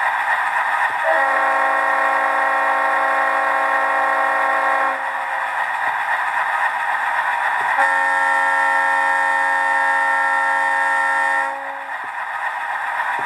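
An HO scale model diesel locomotive's sound decoder plays two long blasts of a multi-chime diesel air horn, about four seconds and three and a half seconds long, over the steady running sound of its diesel engine.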